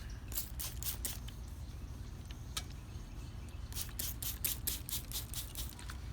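S30V knife blade scraped across a Shapton Pro 1000-grit waterstone in short, quick strokes: a few in the first second, one more near the middle, then a fast run of about ten strokes near the end. A steady low rumble lies underneath.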